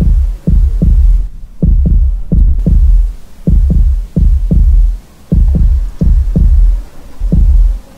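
Heartbeat sound effect: loud, low lub-dub thumps in pairs, repeating about once a second.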